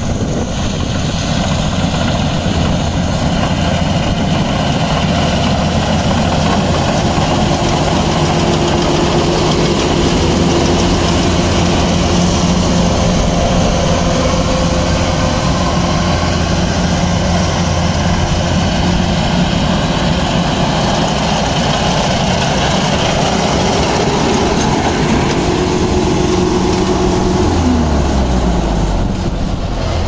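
Kubota DC-93G rice combine harvester running while harvesting, its diesel engine and threshing drives making a loud, steady mechanical drone. A little before the end the engine speed drops, and the hum falls in pitch.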